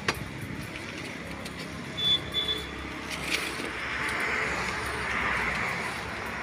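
Handheld electric rotary polisher with a wool pad buffing a car door's paint, its hiss swelling a little past midway, with a sharp click at the start and another about three seconds in.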